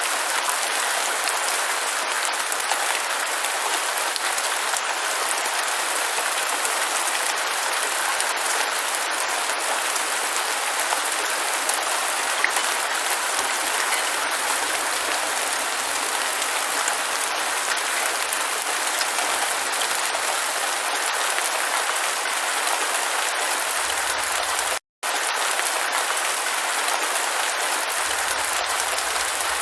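Steady rain, a dense even hiss of falling drops. Near the end the sound cuts out completely for a split second, then resumes unchanged.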